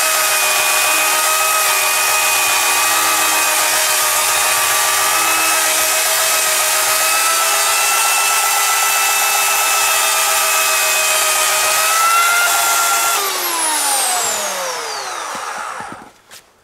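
Oregon CS1500 electric chainsaw on a long homemade bar cutting into a wooden stump, its chain's rakers ground off: a steady motor whine with chain noise, rising a little in pitch near the end of the cut. The trigger is then released and the motor winds down with a falling whine, stopping about three seconds later.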